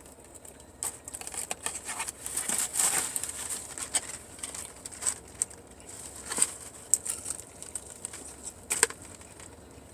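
Close-up eating sounds of someone biting into and chewing crispy fried chicken: irregular crunches, crackles and mouth clicks, with sharper crunches every second or so.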